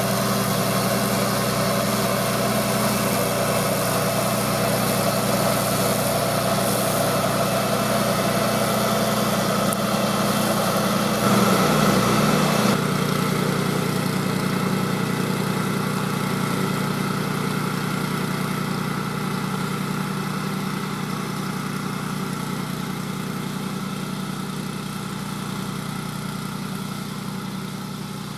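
The 9 HP Briggs & Stratton Vanguard single-cylinder engine of a BCS 830 walk-behind tractor running steadily, driving a 26-inch Berta flail mower through lawn grass. It briefly gets louder about twelve seconds in, then grows gradually fainter as the machine moves off.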